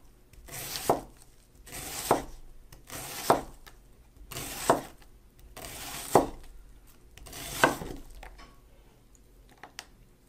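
Freshly sharpened Wüsthof chef's knife chopping an onion on a bamboo cutting board: six strokes about every second and a half, each a short swish through the onion ending in a knock of the blade on the board, the knife going through without resistance. The chopping stops about eight seconds in, leaving a few faint taps.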